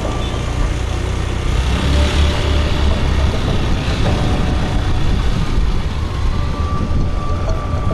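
Street traffic: a steady low rumble of motor vehicle engines, swelling for a second or so around two to three seconds in.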